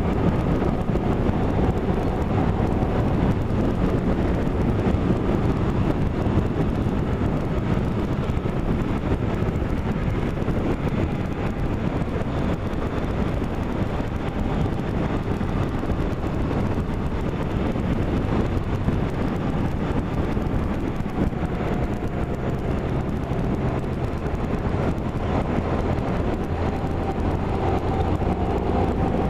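Steady running noise of a moving road vehicle, with wind buffeting the microphone.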